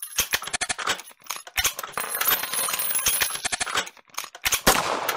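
Outro sound effect: a rapid run of sharp metallic clicks and clinks, then a louder bang near the end that rings out and fades.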